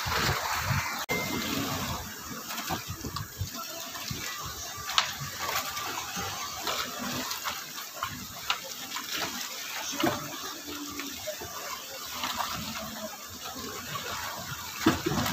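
Choppy sea water sloshing and slapping irregularly against the hull of a small wooden outrigger boat, a little louder in the first couple of seconds.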